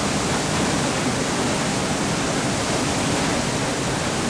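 Steady rush of falling water from a waterfall, an even roar with no breaks.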